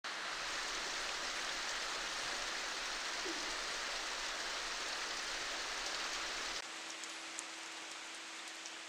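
Steady rain falling, an even hiss. About two-thirds of the way in it drops suddenly to quieter rain with scattered drips and a faint steady hum.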